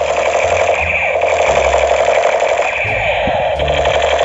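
Battery toy AK-47 gun firing its electronic sound effect: a continuous rapid buzzing rattle with short low tones that change pitch.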